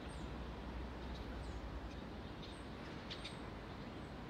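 Quiet outdoor street ambience: a low, steady background rumble with a few faint, short, high bird chirps.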